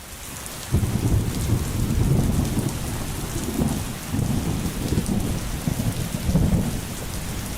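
Heavy rain falling with a steady hiss, joined about a second in by a loud, deep rumbling that rises and falls.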